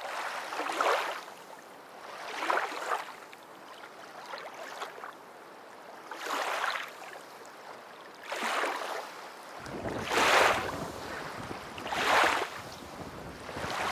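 Sea waves washing and splashing on the shore in repeated hissing surges about every two seconds. Wind buffets the microphone with a low rumble from about ten seconds in.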